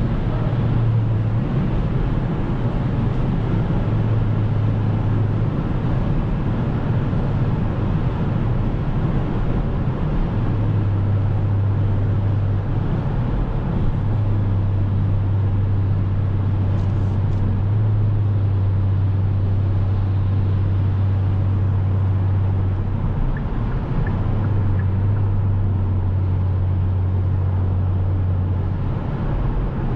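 Kia Stinger GT's 3.3 T-GDI twin-turbo V6 with the optional Bastuck exhaust, heard from inside the cabin while cruising steadily at about 115 km/h. A low exhaust drone comes and goes over steady tyre and wind noise.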